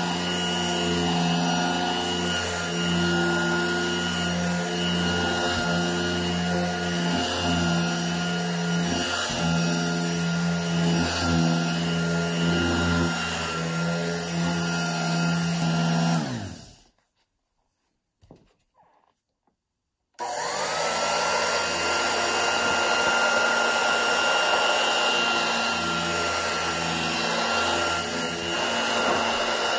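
Dirt Devil Model 103 hand vacuum running, its fan-first motor and revolving brush roll picking up debris from fabric upholstery. About two-thirds of the way through, the motor's pitch slides down and the sound cuts out. A few seconds of silence follow, then it starts again with a rising whine and settles back to a steady run.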